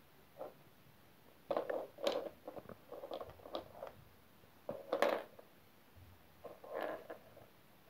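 Small plastic toy dinosaurs being picked up, tapped and slid on a laminate floor: faint, irregular little knocks and scrapes in several short clusters.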